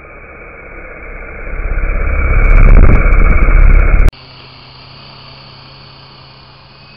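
R/C Hughes 500 scale helicopter running close to the microphone, its steady rotor whine swelling to a loud, rumbling buffet as it comes right at the camera. About four seconds in the sound cuts abruptly to the same helicopter flying overhead at a distance, a quieter steady whine.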